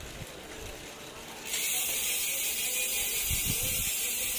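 SpeedOne Soldier bicycle rear hub freewheeling: its six single-tooth pawls click over the ratchet so fast that they blend into a steady high buzz, which starts suddenly about a second and a half in. A couple of low thumps come a little later.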